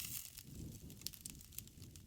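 Wood campfire crackling, a low rumble of burning with a brief hiss at the start and scattered sharp pops.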